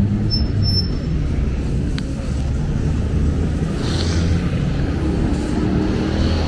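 Street traffic: vehicle engines running close by with a steady low rumble.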